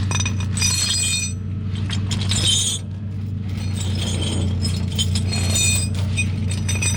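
Repeated metallic clinking and rattling over a steady low engine hum.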